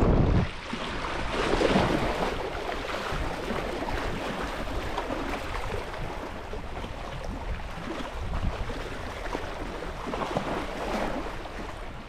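Sea water washing and lapping at the shore, with wind buffeting the microphone, hardest at the very start.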